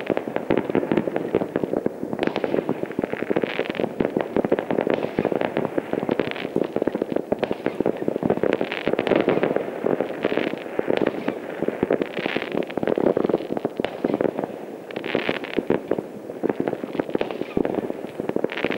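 Fireworks going off all over a town and heard from afar: a continuous dense crackle of many bangs and pops overlapping with no pause, with louder flurries every few seconds.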